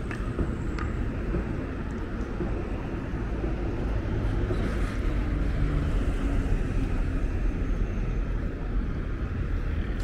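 Steady road traffic from cars and trucks passing on a multi-lane city road.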